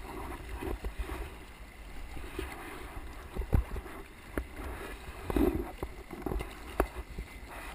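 Kayak on a river: paddle strokes and water splashing and swishing against the boat, with scattered sharp knocks.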